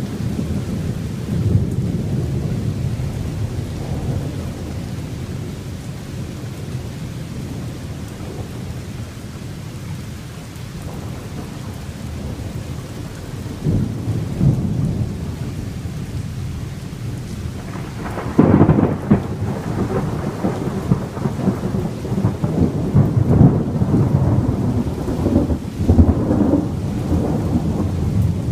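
Thunderstorm: a steady rain hiss, with thunder rumbling in about halfway through. A louder crack of thunder comes about two-thirds of the way in, followed by repeated rolling rumbles.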